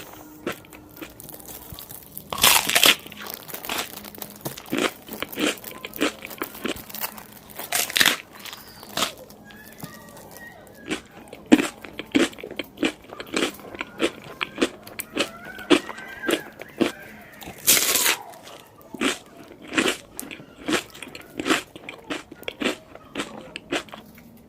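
Crunchy food being bitten and chewed close to the microphone. Loud crunching bites come about two and a half, eight and eighteen seconds in, with crisp chewing between them at about two chews a second.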